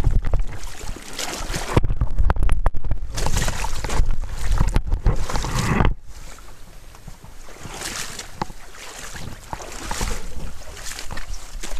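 Wind rumble and handling noise on a moving handheld camera's microphone, with scattered knocks, as someone moves about beside a kayak on a stony bank. The rumble cuts off suddenly about six seconds in, leaving quieter rustling and clicks.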